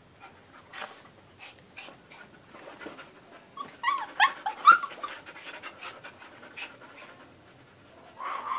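Dogs playing: a quick run of high yips and whines about four seconds in, the loudest part, with another short call near the end, over a dog's panting.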